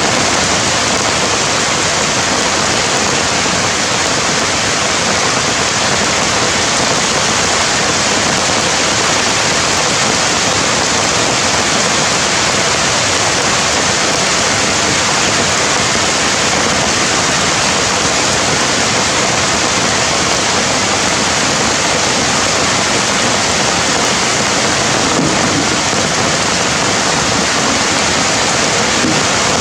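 Steady, loud rushing hiss of water, unbroken and even throughout, with no bird calls standing out.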